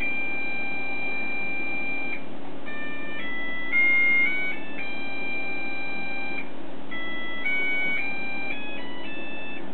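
Disney Cruise Line propeller-shaped stateroom alarm clock playing its alarm as a simple electronic tune of pure tones. The notes change pitch in steps: some are held for about two seconds, and others follow each other quickly.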